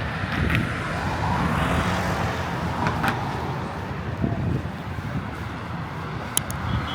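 Road traffic crossing a city bridge: a steady rumble of passing cars, swelling briefly as vehicles go by, with a few sharp clicks near the end.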